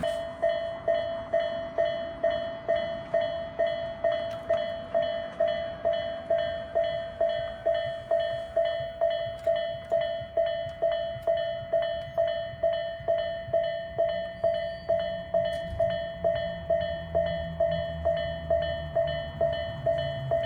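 Japanese railroad crossing warning bell ringing its steady 'kan-kan' at about two strikes a second. A low rumble rises under it about two-thirds of the way in as a Tobu Urban Park Line train draws near.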